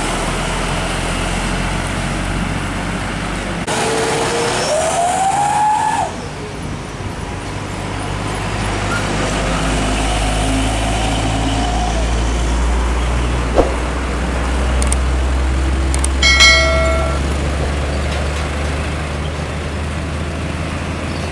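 Heavy diesel trucks passing close by, with a steady low engine drone and tyre noise. A rising whine comes about four to six seconds in, and a short horn toot sounds near the end.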